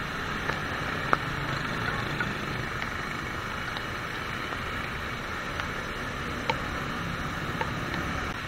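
Riding a motorcycle through heavy rain on a wet road: a steady hiss of rain, wind and tyre spray with a low engine hum underneath. Scattered light ticks of raindrops hit the helmet camera.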